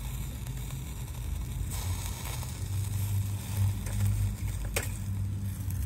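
A metal spatula working under a burger patty on a small wire grill over a wood stove, with one sharp click about five seconds in. A low steady rumble runs underneath.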